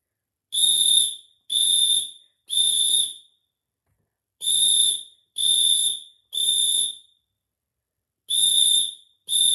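Fire alarm sounding its high-pitched electronic beep in the temporal-three evacuation pattern: three beeps about a second apart, a pause, then three more, repeating.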